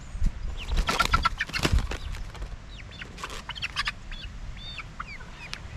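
Young chickens squawking and flapping their wings in a wire crate as they are grabbed: a flurry of flapping and squawks about a second in, then a few short calls.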